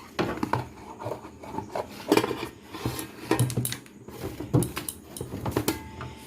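Food containers being handled on fridge shelves, lids opened and shut: a string of irregular clicks, taps and rubbing, with a brief faint tone near the end.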